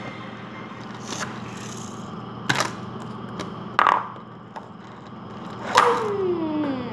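Small toy cars knocked and scraped on a hard tabletop close to the microphone: several sharp knocks, about one every second or so.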